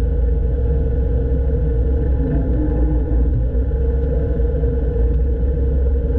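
Diesel engine of a 1970s Poclain LC80 excavator running steadily with a loud, deep rumble.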